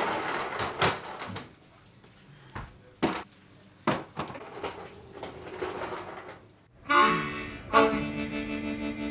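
Knocks and handling noises from bakery work with a ladle and a plastic tub of sourdough starter, then about seven seconds in, background music starts with steady held chords.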